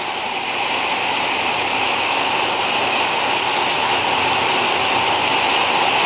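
Steady rain falling in a thunderstorm, an even, constant hiss with no thunder.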